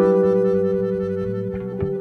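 Background instrumental music: a held chord over a stepping bass line.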